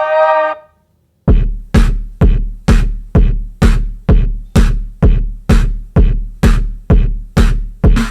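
Electronic drum-machine beat: one heavy kick-like hit with a deep low boom, repeated evenly about twice a second. It starts about a second in, after a held synthesizer-like tone cuts off.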